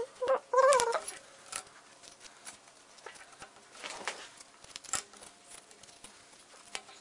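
Cardboard jigsaw puzzle pieces being handled, with light rustling and a few sharp clicks and taps as pieces are picked up and pressed into the plastic tray. Near the start, a short wavering squeak-like call rises and falls twice and is the loudest sound.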